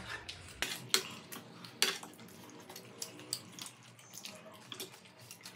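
Metal spoons and forks clinking and scraping against ceramic plates while eating, a handful of sharp clinks at irregular intervals.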